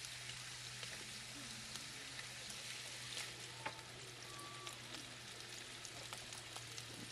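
Hot dogs sizzling in a frying pan on a portable gas camping stove: a steady crackling sizzle with many small pops.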